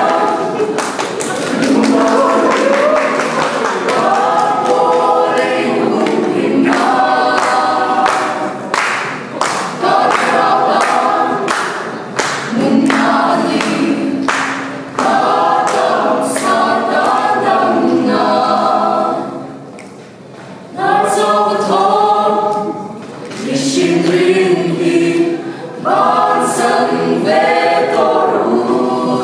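Mixed-voice a cappella group of men and women singing in close harmony, with sharp clicks keeping a steady beat under the chords. The singing breaks off briefly about twenty seconds in, then comes back.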